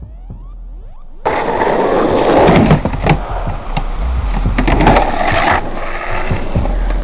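Skateboard wheels rolling loudly over asphalt and a plywood box, with sharp clacks of the board throughout. The first second holds faint electronic sounds rising in pitch.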